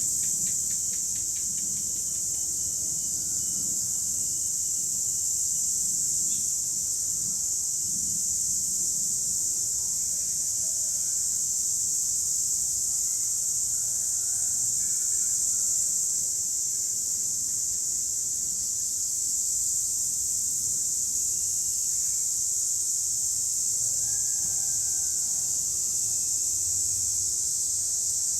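A chorus of cicadas buzzing in one continuous high-pitched drone, with faint chirps scattered through it.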